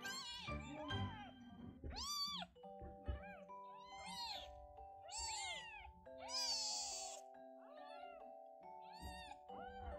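Tiny kittens mewing: about a dozen short, high cries, each rising and falling in pitch, with a harsher one a little past halfway. Background music with sustained notes plays underneath.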